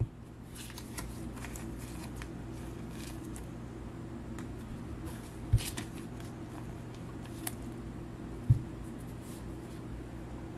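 Stiff chrome trading cards handled by hand: soft slides and light ticks of card stock as cards are pulled from a stack and turned over, with two dull thumps a few seconds apart in the second half. A steady low hum runs underneath.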